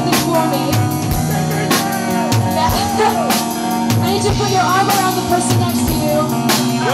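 Live rock band playing: a woman sings over electric guitars, bass notes and a drum kit, with cymbal crashes every second or two.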